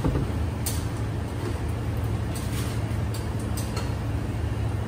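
Wok of coconut-milk fish curry simmering on an induction cooktop with a steady low hum, and a few light clicks and scrapes as the utensil works in the pan.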